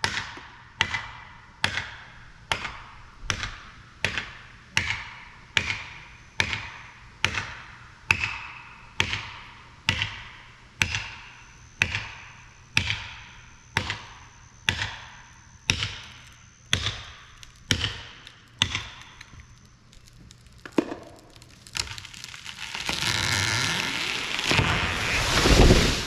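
Steady ringing blows of a hammer driving a felling wedge, a little more than one a second, which stop about twenty seconds in. The large oak then gives way with a growing rush of branches that ends in a heavy crash as it hits the ground.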